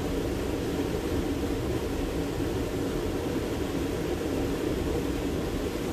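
Steady rush of Chippewa Creek flowing over rocks, an even, unbroken noise.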